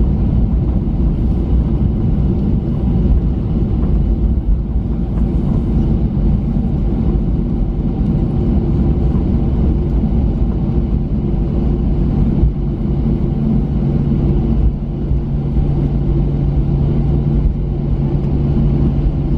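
Cabin noise inside a Boeing 737-900 on arrival: a steady, loud, low rumble of the engines and airframe, with a steady hum that grows stronger in the second half.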